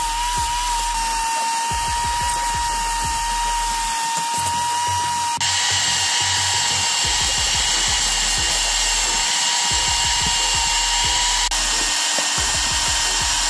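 Vacuum cleaner running through its hose with a loud, steady high whine. The whine's pitch and brightness shift abruptly twice.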